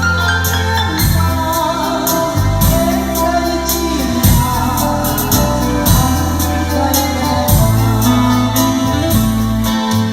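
Music played on a Korg Pa3X arranger keyboard: a held bass line and a steady drum beat under a melody.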